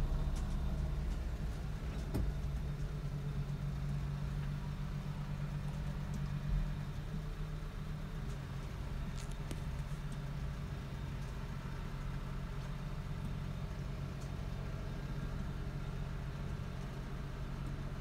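Engines of a bulk feed truck and a forklift running at low revs, a steady low hum that eases slightly in the first couple of seconds.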